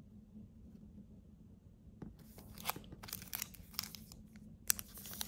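Trading-card pack wrapper crinkling and tearing as a pack is opened. Crisp crackles start about two seconds in and grow busier.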